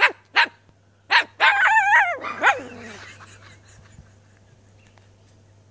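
Umbrella cockatoo imitating a dog's bark: three short barks, a wavering whine-like call, then one more bark.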